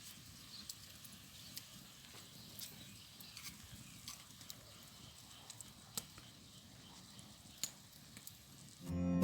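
Faint quiet ambience with a few scattered sharp ticks. Acoustic guitar music starts near the end.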